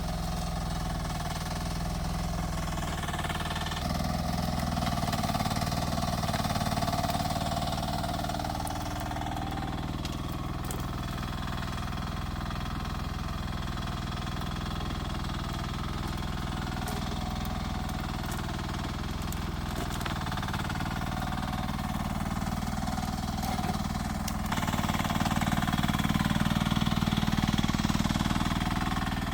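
Rippa R10 mini excavator's engine running steadily. It gets louder twice under work, about four seconds in and again near the end, with a few faint clicks in between.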